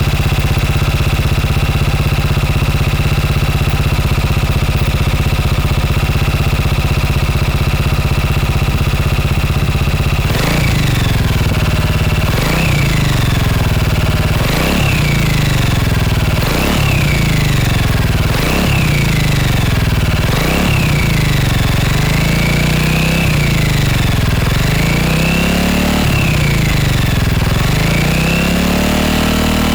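Honda Forza MF17 scooter's single-cylinder engine through a BEAMS R-EVO titanium full exhaust, idling steadily for about ten seconds. It then revs in quick throttle blips about every two seconds, which turn into smoother, slower rises and falls near the end.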